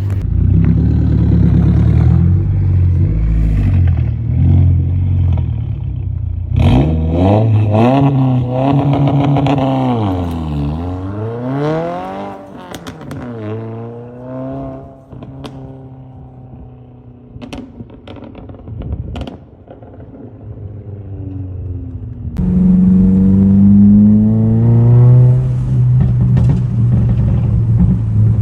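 Straight-piped, tuned Subaru WRX (VB) turbocharged flat-four revved from idle: the pitch climbs and falls several times. As the revs drop, the exhaust pops and crackles in a string of sharp cracks. The engine comes back loud near the end.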